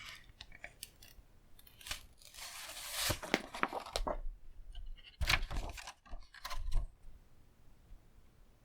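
Blu-ray packaging being handled and opened: a stretch of tearing and rustling about two seconds in, then a few sharp plastic clicks and snaps near the middle.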